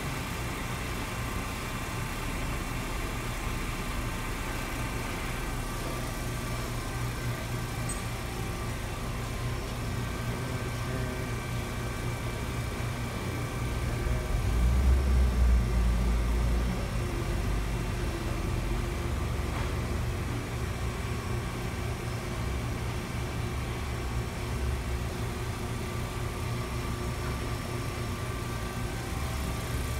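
Steady electric-motor hum from a powered-up RAS CNC folding machine, with a few constant whining tones above it. About halfway through, a low rumble swells for a couple of seconds and then settles back.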